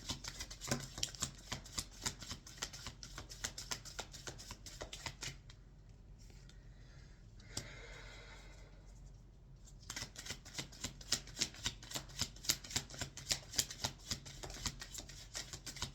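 A deck of tarot cards being shuffled by hand: rapid papery flicks and clicks of card against card, which stop about five seconds in for roughly four seconds and then start again.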